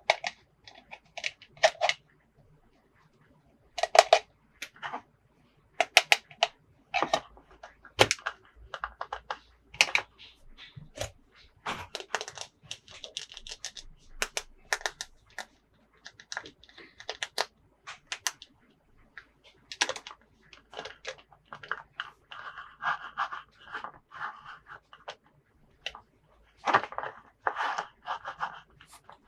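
Plastic toy packaging and parts being handled for an unboxing: irregular clicks, taps and crinkles, with denser stretches of crinkling and tearing about halfway through and again near the end.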